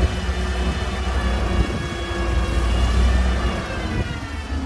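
1980 Ford grain truck running with a steady low rumble, while the hydraulic hoist lowers the tipped grain box. A high whine rides over the engine and drops in pitch about three and a half seconds in.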